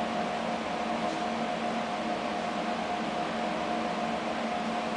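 Steady mechanical hum and hiss, with a constant faint whine held at one pitch.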